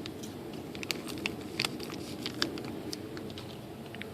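Small plastic T (Deans) connectors being handled on a workbench: a scatter of light, irregular clicks and taps.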